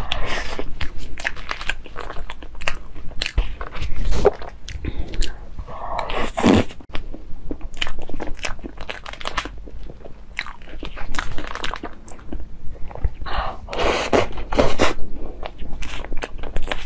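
Close-miked chewing and mouth sounds of eating cream-filled sponge cake from a spoon, with many short clicks and smacks.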